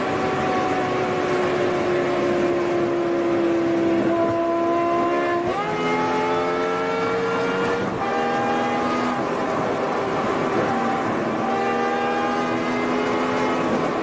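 Supercharged V10 engine of a BMW E60 M5, heard from inside the cabin under way at speed. The engine note sags slightly, then about five seconds in the pitch jumps up sharply as it drops a gear. After that the revs climb again, with a couple of short breaks, as the car accelerates.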